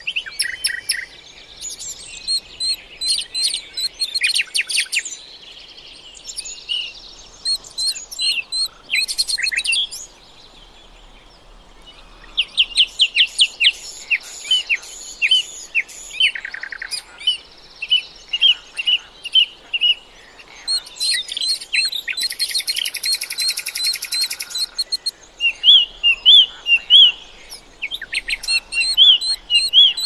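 Several songbirds singing and calling at once: quick chirps, whistled notes and fast trills, with a brief lull about ten seconds in.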